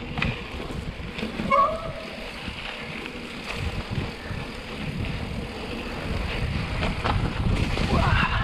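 Mountain bike rolling along a dry dirt trail covered in dead leaves, with wind buffeting the action-camera microphone and scattered knocks from the bike over bumps. A short high squeak comes about a second and a half in.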